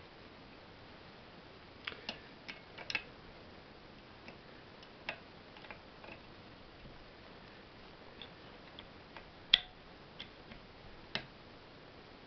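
Scattered light clicks and taps from hands handling the metal body, end cover and shaft of an electric motor during reassembly, the loudest about nine and a half seconds in, over a faint steady hiss.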